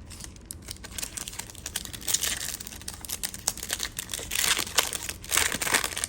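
A plastic trading-card pack wrapper being torn open and crinkled in the hands. The crackling comes in two louder spells, about two seconds in and again in the last two seconds.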